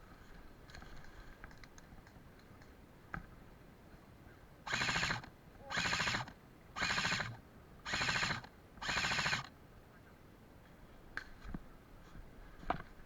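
Airsoft electric rifle firing five short full-auto bursts, each under a second long, about a second apart, beginning about five seconds in. A few faint clicks and knocks come before and after.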